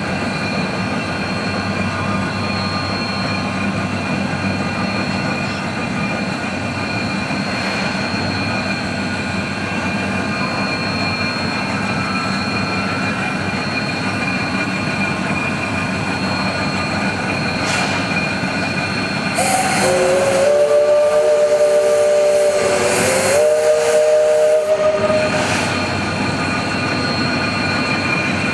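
The whistle of the 1913 0-4-0 steam locomotive No. 30 blown once for about six seconds, several notes sounding together with the pitch stepping up partway through, over the locomotive's steady hiss and running noise.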